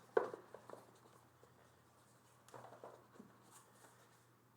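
Faint handling sounds as unboxed items are moved about and put aside: a short scratchy rustle just after the start, a few light clicks, and another brief scrape a little before three seconds in.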